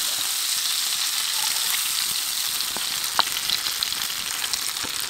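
Grease sizzling steadily in a skillet where burger patties and sesame buns are frying over a campfire, with scattered small pops.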